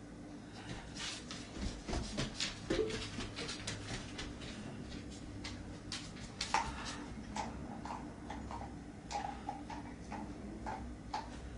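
A dog's claws clicking in quick irregular taps on the floor as it prances about, with a few short high-pitched squeaks in the second half.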